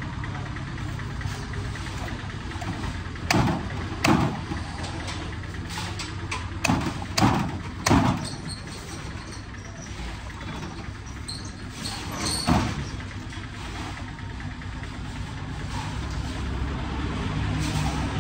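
About six heavy chops of a fish-cutting knife through a large wallago catfish (aattu vaala), irregularly spaced: five in close succession and one more after a pause, over a steady low hum.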